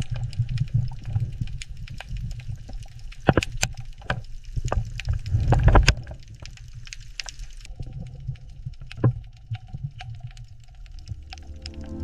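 Underwater ambience: a low rumble of water with bubbling, gurgling and scattered sharp clicks and pops. Music fades in near the end.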